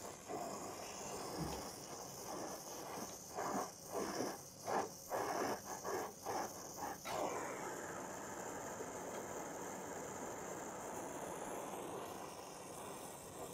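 Oxy-acetylene brazing torch flame hissing steadily as it heats a copper refrigerant line joint to loosen the solder. Between about three and seven seconds in, the hiss wavers up and down several times, then settles.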